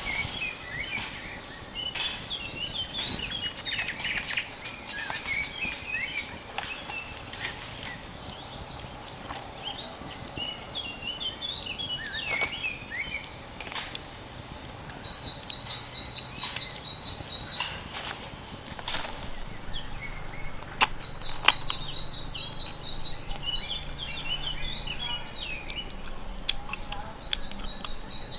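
Birds chirping and calling, with a repeated high trill several times in the second half, over scattered sharp taps.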